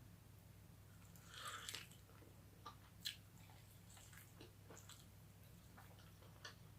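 Faint close-up eating sounds: chewing on cooked chicken bones, with scattered soft clicks and small crunches.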